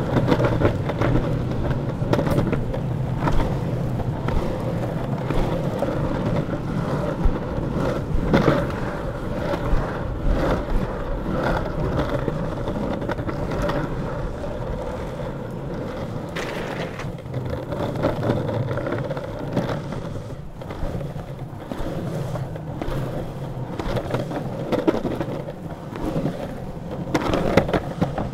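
Longboard wheels rolling over asphalt and concrete paving with a steady rumble, broken now and then by a sharp clack.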